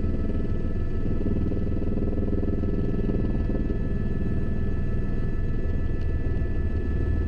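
Turbine helicopter heard from inside the cabin: a steady high engine whine over the low drone of the rotor, even throughout.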